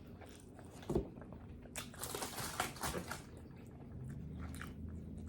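A person chewing food with the mouth open, close to the microphone: wet smacking and crunching, densest in the middle, after a single soft knock about a second in.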